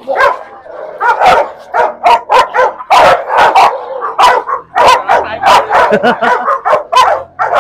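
Dogs barking hard in a rapid, overlapping volley, several barks a second, the sound of dogs worked up against a strange dog.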